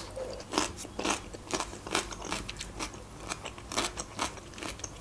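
Fresh cucumber being bitten and chewed: crisp, irregular crunches several times a second.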